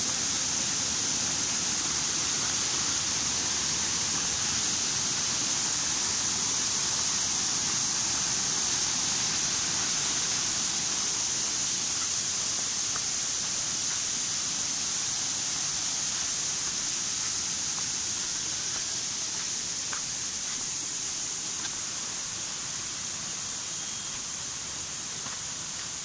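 Small forest waterfall cascading over rocks, a steady rush of water that grows a little quieter over the second half.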